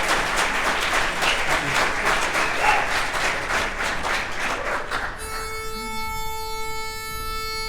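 Audience applause that dies away about five seconds in, followed by a single steady reedy note from a pitch pipe held for about two and a half seconds, giving the barbershop quartet its starting pitch for the next song.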